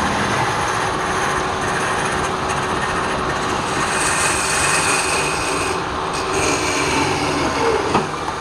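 Wood lathe running while a piece of wood is turned: a steady, loud rushing noise with faint high whining tones partway through. A brief sharper sound comes near the end.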